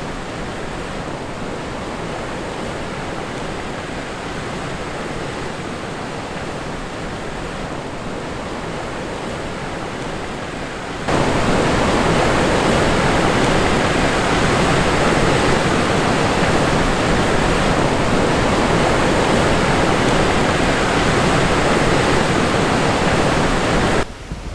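Waterfall rushing: a steady wash of falling water that jumps abruptly louder about eleven seconds in, then drops away sharply just before the end.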